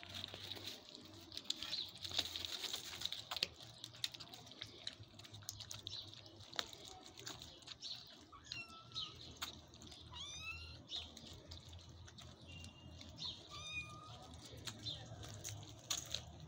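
Kittens eating wet food from paper plates: faint, quick lapping and chewing clicks. A few short high chirping calls come near the middle.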